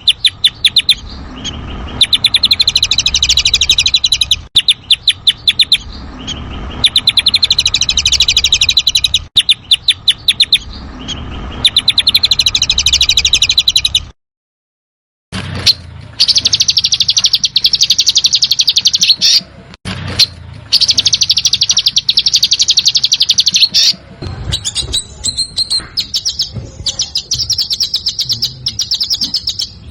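A songbird giving rapid, harsh rattling trills of the 'besetan' kind, in phrases of a few seconds that repeat. The recording cuts out for about a second near the middle, then goes on with a denser buzzing rattle and, near the end, more broken chirps.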